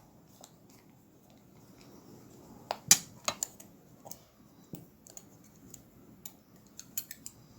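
Scattered sharp metallic clicks and taps from an old metal utility knife being handled, the loudest about three seconds in.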